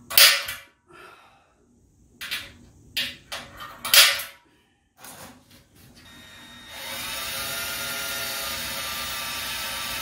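A few sharp knocks of metal handling, then a power drill spins up about six seconds in, rising in pitch and then running steadily as it drills the pilot hole for a heating element through the brew kettle's wall.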